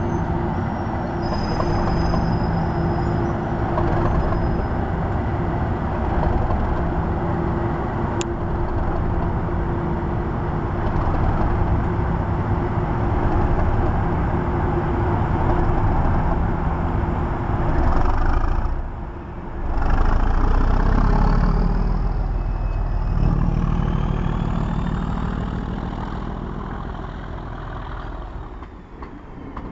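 Class 37 diesel-electric locomotive's English Electric V12 engine running under power as the locomotive approaches and passes close by with its train. A brief drop about two-thirds in is followed by the loudest low rumble as the locomotive goes past, then the sound fades to the coaches rolling over the rails near the end.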